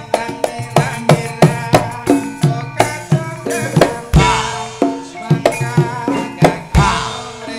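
Javanese gamelan accompanying a tayub dance: quick kendhang drum strokes over ringing metallophone notes, with two heavier low strikes and a shimmering wash about four and seven seconds in.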